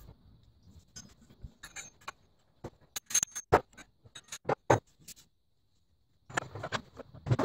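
Sped-up workshop handling sounds: a quick, irregular run of sharp clicks and knocks as a wooden spade handle is worked in a bench vise and a metal fork head is fitted onto it, with a short pause about two-thirds through.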